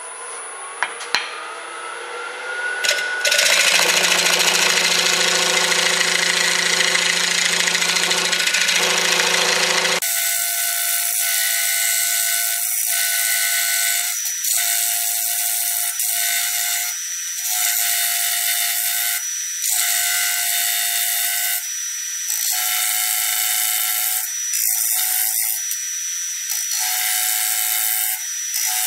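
Grizzly wood lathe spinning up with a rising whine, then a gouge cutting the lip of the spinning walnut-and-resin bowl with a steady, loud hiss of shavings. About ten seconds in the sound turns abruptly thin and clipped, cutting in and out every second or two.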